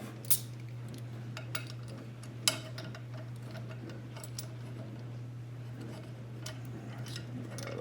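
Scattered light clicks and taps of small hard parts being handled on a workbench, with two sharper knocks about a third of a second in and about two and a half seconds in, over a steady low hum.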